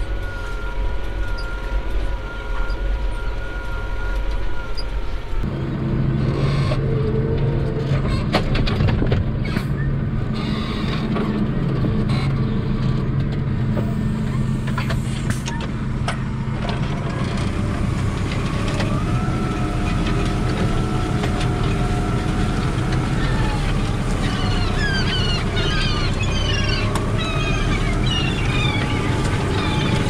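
Tractor engine running steadily under load while pulling a four-furrow plough; its drone gets louder and deeper about five seconds in. From about two-thirds of the way through, many gulls call over it.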